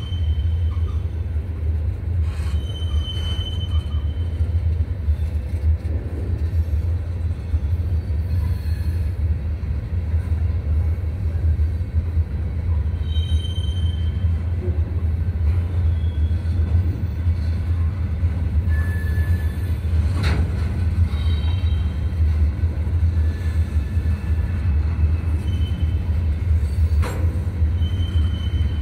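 Freight train of covered and open hopper cars rolling past close by: a steady low rumble of wheels on rail, with brief high wheel squeals now and then and a few sharp clanks.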